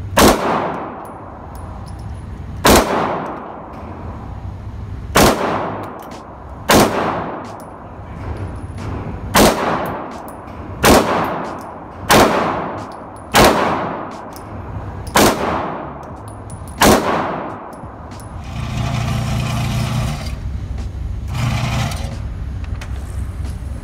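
A Glock 19 9mm pistol fired ten times at an irregular, unhurried pace in an indoor range, each shot ringing briefly off the walls. Near the end a motorised target carrier hums in two short runs as it brings the paper target back.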